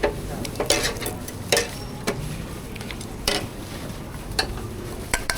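Kitchen utensils clinking and knocking against bowls and pots in scattered, irregular taps over a steady background hiss.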